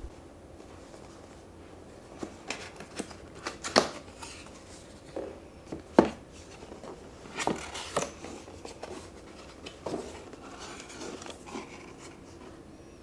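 Close-up handling sounds: scattered sharp clicks, light knocks and rustles of small objects being picked up and set down, with two sharper knocks about four and six seconds in.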